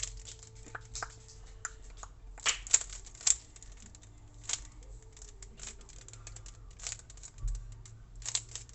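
A plastic Rubik's cube being turned by hand: a run of irregular clicks and clacks as its layers are twisted, loudest about two and a half to three and a half seconds in.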